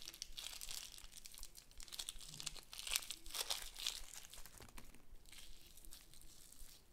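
Foam-bead slime being squeezed and kneaded in the hands, giving off soft, irregular crackling and crinkling, loudest a few seconds in.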